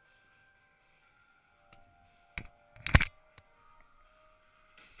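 Airsoft gunfire: a few sharp cracks, the loudest a quick cluster about three seconds in, over faint background music.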